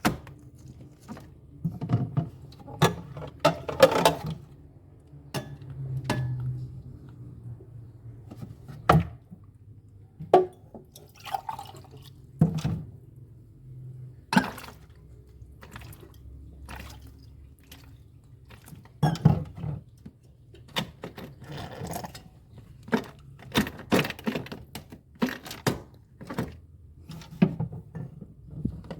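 Irregular clicks, taps and knocks from hand work on refrigerator parts, scattered unevenly over a faint low hum.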